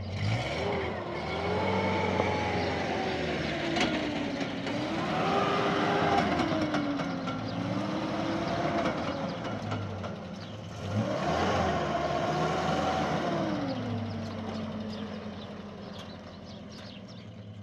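Zamyad pickup truck's engine revving up and down under way, in two long rises and falls of pitch, the second beginning about ten seconds in, then dropping back to a quieter, steady low hum near the end.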